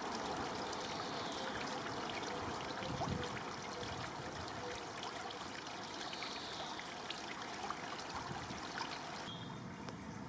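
Steady running water, a trickling stream-like rush.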